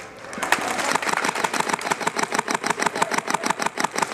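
Airsoft gun firing on full auto: a long, even string of rapid shots, about ten a second, starting about half a second in.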